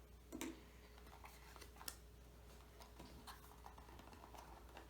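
Near silence with a few faint, light clicks and taps: small packaging and accessories being handled while a box is unpacked.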